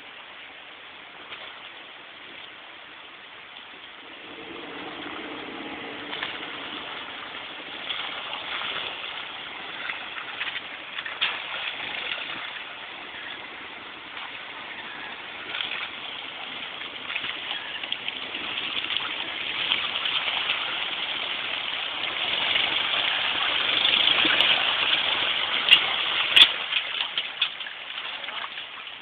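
Willys flatfender Jeep's engine running under load as it crawls up a muddy, rutted trail, growing steadily louder as it approaches and passes close by, with a few sharp knocks near the end.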